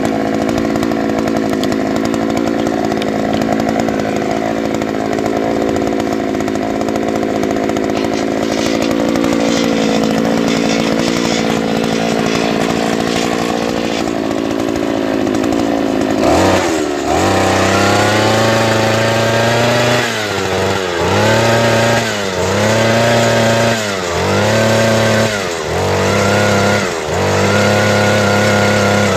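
63 cc two-stroke engine of a Fortune earth auger (post hole digger) running steadily at high speed. About two-thirds of the way through its pitch drops suddenly, then it repeatedly dips and recovers, roughly every second and a half.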